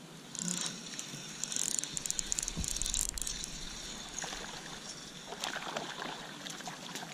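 Irregular water splashing and sloshing: a hooked smallmouth bass thrashing at the surface as it is reeled in.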